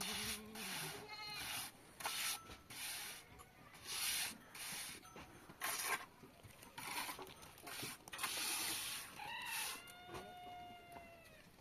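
Goats bleating, with one long, slightly falling bleat late on, over repeated rough scraping or rubbing strokes from the building work.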